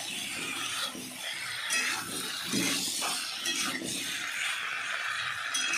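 Vegetables being stirred in a metal pan, the utensil scraping and clinking against the pan in irregular strokes, over a steady frying sizzle.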